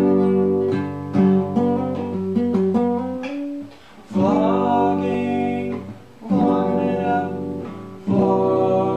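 Nylon-string classical acoustic guitar being played: a ringing chord with single notes picked over it for about three seconds, then three chords struck about two seconds apart, each left to ring.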